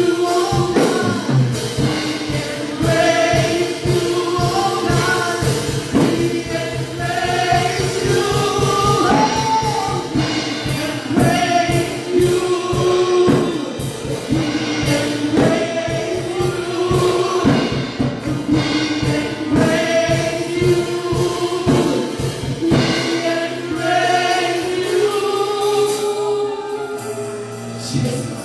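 A church worship team singing gospel music together, with band accompaniment and a steady drum beat. The beat and bass fall away about five seconds before the end, leaving the voices and keys.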